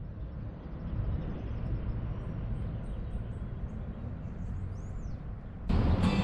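Outdoor ambience: a steady low rumble with a few faint, short, high bird chirps in the middle. Music starts suddenly near the end.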